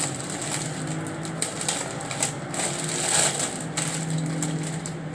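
Plastic produce bag crinkling and rustling as a head of lettuce is handled and pulled out of it, over a low steady hum.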